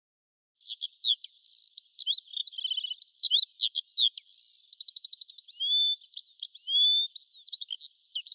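Small songbirds singing: a busy, unbroken run of quick chirps, trills, rapid note series and short sliding whistles, starting about half a second in.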